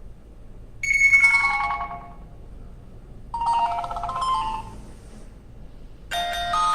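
Preset ringtones of an HTC Desire 610 playing one after another through the phone's speaker. A short falling run of chime-like notes comes about a second in, a second short phrase about three and a half seconds in, and another tone starts near the end.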